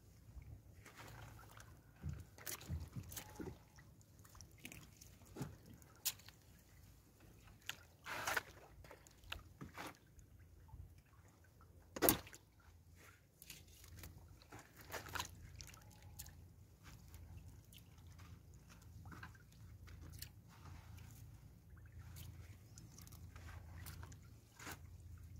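Wet fishing net being hauled by hand over the side of a small wooden outrigger boat: water dripping and splashing, with scattered clicks and knocks of net against the hull and a sharp knock about twelve seconds in.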